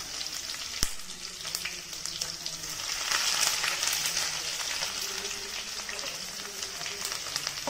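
Chopped onions sizzling in hot oil in a kadai, with a metal spatula stirring and scraping against the pan. One sharp knock about a second in, and the sizzle grows louder about three seconds in.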